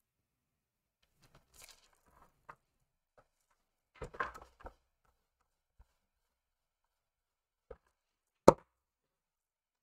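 Craft supplies being handled on a table: a few light clicks and knocks about four seconds in, then one sharp knock about eight and a half seconds in, as hard plastic stamping gear such as an acrylic stamp block or ink pad case is set down or picked up.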